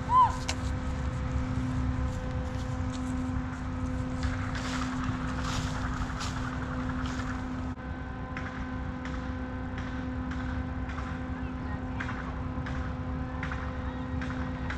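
A steady, even, engine-like hum with low wind rumble on the microphone, and faint regular ticks in the second half.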